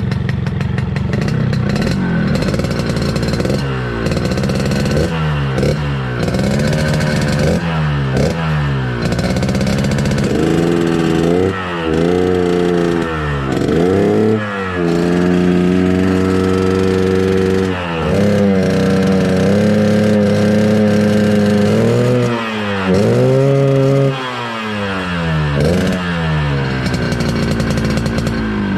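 Yamaha RX-King's two-stroke single-cylinder engine, on its stock exhaust and tuned to the growling 'ngorok' (snoring) setting, being revved by hand again and again. It gives quick blips that rise and fall back for the first several seconds, then longer held revs in the middle, then more blips near the end.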